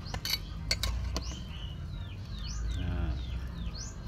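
Metal ladle clinking against the cooking pot four times in the first second or so, over a low steady rumble from the boiling pot. A bird chirps repeatedly in the background, about two short chirps a second.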